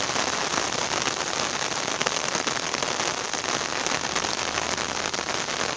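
Steady rain falling on the open water of a reservoir and its muddy bank: an even hiss full of countless small drop strikes.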